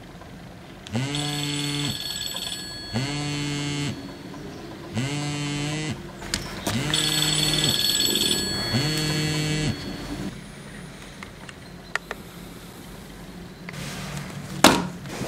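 Electronic alarm beeping in a steady on-off pattern: about five pitched tones, each roughly a second long and a second apart, which stop partway through. A sharp knock sounds near the end.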